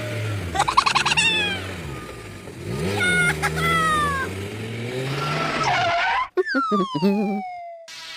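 Dubbed sound effects of a car engine revving, with tire squeals or skids over it. About six seconds in the engine stops and a long falling whistle-like glide follows.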